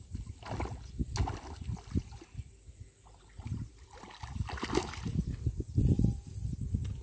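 Water splashing and sloshing in irregular surges as a hooked snakehead thrashes at the surface and is reeled toward the bank, the loudest splashing a little before the end.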